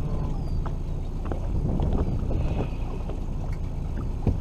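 Wind rumbling on the microphone over choppy water around a small aluminium fishing boat, with scattered small clicks and knocks.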